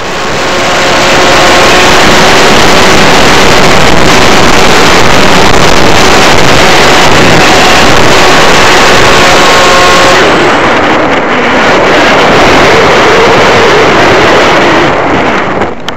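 Electric RC foam airplane heard through its onboard keychain camera's microphone in flight: a loud, steady rush of wind and propeller noise with a faint motor whine. About ten seconds in the hiss softens, and near the end the sound breaks up into uneven knocks and crackles.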